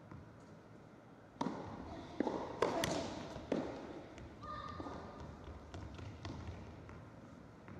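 Tennis rally on an indoor carpet court: rackets striking the ball and the ball bouncing on the carpet, about five sharp pops over two seconds, each ringing briefly in the hall.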